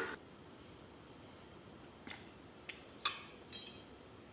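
A few light metallic clicks and a short scrape from the tip end of a MIG welding gun as the old contact tip is worked off.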